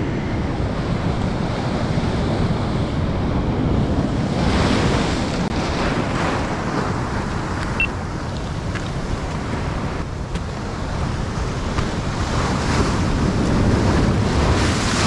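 Sea waves surging and washing against the shore, with wind noise on the microphone. The rush of surf swells up about five seconds in and again near the end.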